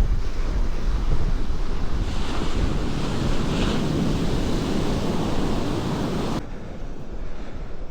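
Surf breaking and washing up the beach, with wind buffeting the microphone. A wave swells up about two seconds in and hisses on, then cuts off suddenly near the end, leaving the wind rumble.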